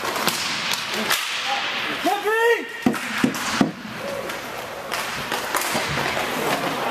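Hockey sticks clacking and slapping the puck during play, with several sharp cracks a little under halfway through. A player's short yell comes just before them, over steady rink noise.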